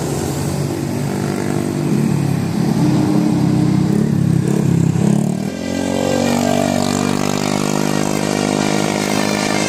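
Motor vehicle engines running on a road: a rough, louder engine sound from about two to five seconds in, then a steadier engine drone.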